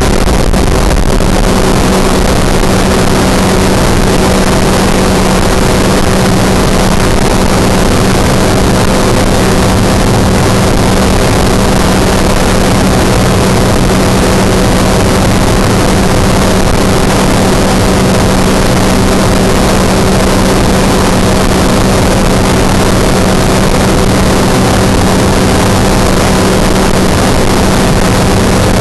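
Microlight trike's engine and propeller running steadily in cruise, with heavy wind rushing over the open cockpit. A constant low hum with a few higher steady tones sits under the wind noise.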